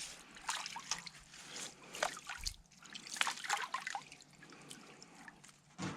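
Water trickling and splashing lightly in small irregular bursts.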